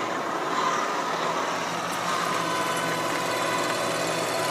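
Bridgeport milling machine running steadily as a three-flute end mill cuts down through the fins of an aluminum Harley-Davidson Shovelhead cylinder head, a continuous whir with a faint steady high tone, boring the pocket for a second spark plug.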